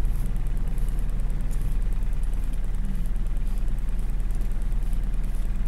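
Four-ton truck's diesel engine idling steadily, heard from inside the cab.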